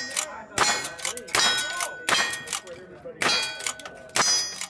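Lever-action rifle fired about once a second, five shots in all, each shot followed by the ringing clang of a steel target being hit.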